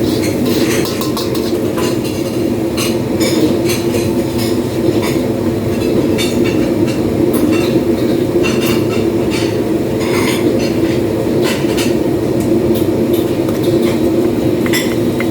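Metal pans and utensils clinking and clattering irregularly over a steady loud drone from kitchen equipment.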